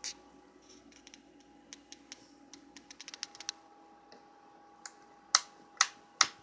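Scattered light clicks and taps, then three louder sharp clicks about half a second apart near the end.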